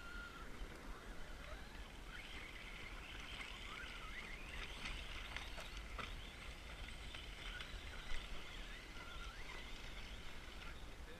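Electric motor of a radio-controlled off-road car whining up and down in short rising glides as it is driven over rough ground, over a steady low rumble.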